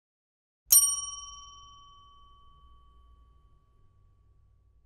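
A single bright bell-like ding, struck once and ringing out as it fades over about three seconds, with a faint low hum underneath: a logo chime for the end card.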